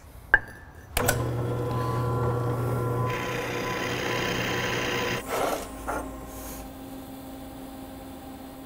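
Delta benchtop drill press running, its motor humming steadily, with the bit grinding into a metal plate for about two seconds. Just after five seconds it stops abruptly and gives way to a quieter steady electrical hum from the welding setup.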